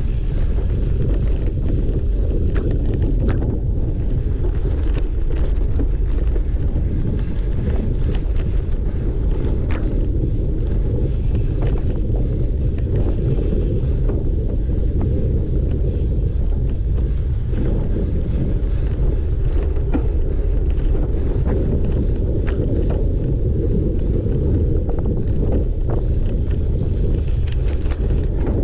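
Steady wind buffeting on the microphone of a camera carried by a cyclocross racer riding in a stiff wind, a heavy low rumble, with scattered sharp clicks over it.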